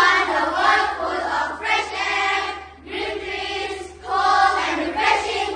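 A chorus of children's voices in unison, going in short phrases with brief pauses between them.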